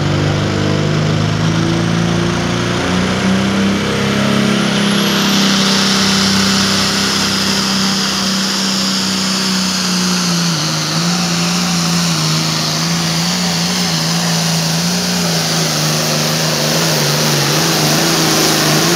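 Hot Farm class pulling tractor's diesel engine running hard under full load, a loud steady drone with a higher whine building from about five seconds in.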